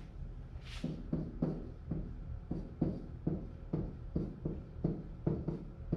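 Marker writing on a whiteboard: a run of short strokes, about two a second.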